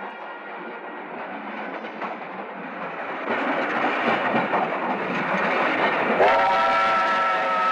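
A train rushing past, its rumble and wheel clatter growing louder about three seconds in. About six seconds in, a train whistle sounds a held chord that slides up into pitch at its start.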